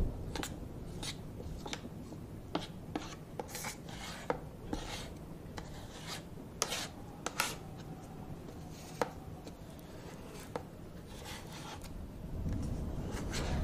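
Plastic spatula scraping and tapping thickening cream across the metal freezing plate of a rolled-ice-cream maker, in irregular rasping strokes. A low hum runs underneath and gets louder near the end.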